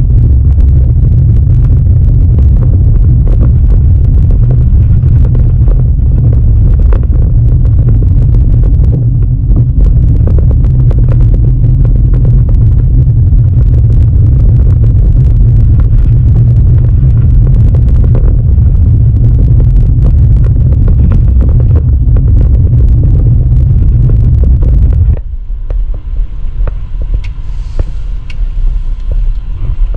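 Heavy low rumble of a car driving over a snow-covered road, heard from inside the cabin. Near the end it drops off sharply to a much quieter rumble.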